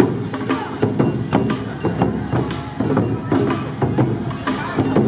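Awa-odori festival music: Japanese taiko drums, large and small, worn on shoulder straps, struck in a fast, steady rhythm.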